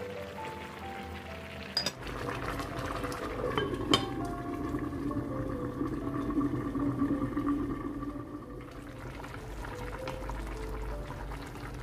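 A pot of rice and water boiling hard, a bubbling hiss that swells about two seconds in and eases off after about eight seconds. A sharp click comes about four seconds in, and light background music with a simple melody plays throughout.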